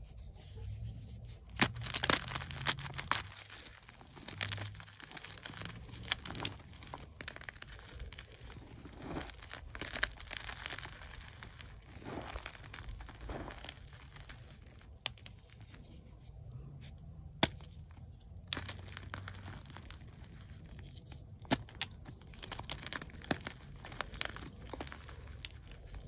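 Soft gym chalk blocks and chunks crushed and crumbled by hand into powder: dry crunching with irregular sharp cracks, the loudest snap about two seconds in.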